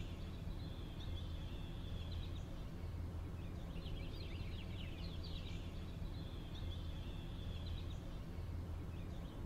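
Outdoor ambience: birds chirping and trilling in short spells that come and go, over a steady low hum.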